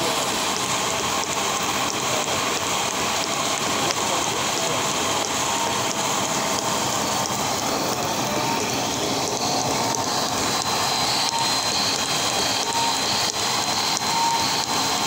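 Water gushing from a tube well's discharge pipe into a concrete tank, a steady rushing splash. About ten seconds in, a faint, high, steady whine joins it.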